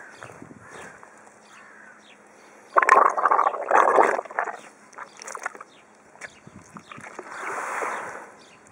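A hippopotamus at close range with its mouth wide open, giving a loud, noisy rush of breath about three seconds in and a softer, smoother one near the end, with a few wet clicks between.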